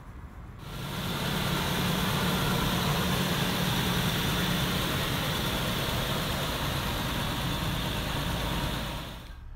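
Ford F-150's 4.2L V6 gas engine idling steadily, heard up close under the open hood. It fades in about a second in and fades out near the end.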